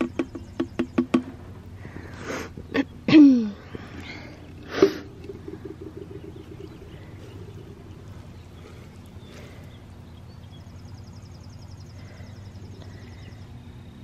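A container rapped quickly against the rim of a glass jar, about five knocks a second, to knock the last sticky creek mud out of it. A few seconds in come two loud, short vocal sounds, the first falling in pitch.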